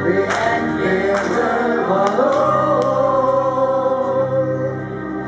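A man singing live into a microphone, holding long notes over an instrumental accompaniment that carries a steady low note from about halfway through.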